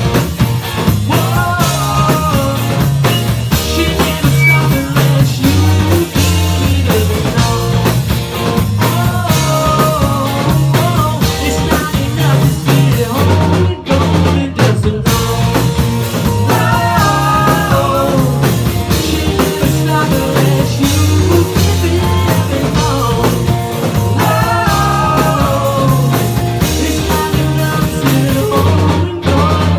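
Live rock band playing: a male singer's vocals over electric guitars, bass guitar and a drum kit. The whole band cuts out for two short breaks about halfway through.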